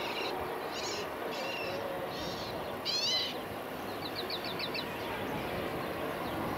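Birds calling in a series of short chirps, among them a run of quick falling notes about three seconds in and a fast string of about six notes around four seconds in, over a steady background hiss and rumble.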